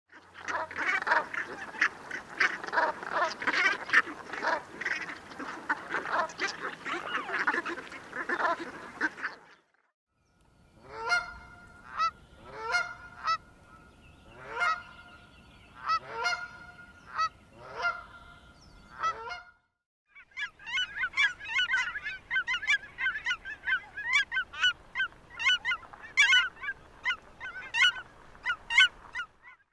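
Brant geese calling in a dense, overlapping chorus. After a short gap comes a Canada goose giving spaced single honks, each rising sharply at its start. After another gap, cackling geese give rapid, higher-pitched yelping calls.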